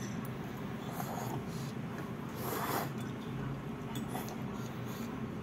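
People eating noodles: mouth noises and light clicks of chopsticks and forks on plates, with one louder breathy slurp about halfway through, over a steady low room hum.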